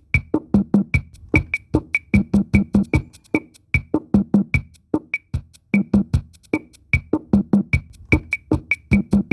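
Rhythmic percussion music: a fast, steady pattern of drum strokes, some low and booming, most with a sharp high click.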